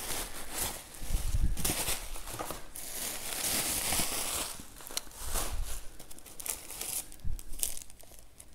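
Bubble wrap crinkling and rustling as it is pulled and handled in a cardboard box, densest in the first half and thinning to scattered crackles later.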